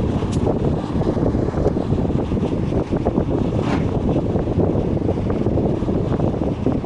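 Bus driving along a road: a steady rumble of engine and road noise, with a few light clicks.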